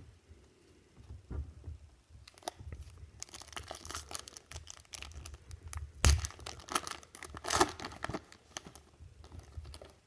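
A trading-card pack wrapper being torn open and crinkled. It is a run of crackling rustles that starts about two seconds in, with the loudest rips about six seconds in and again a second and a half later.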